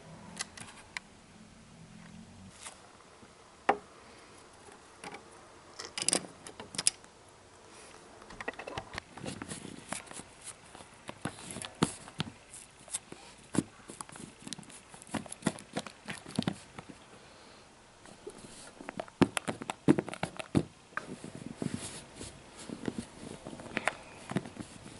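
Small plastic toy figures handled by hand, making irregular clicks and taps against each other and the surface. The taps are sparse at first and come thick and fast from about eight seconds in.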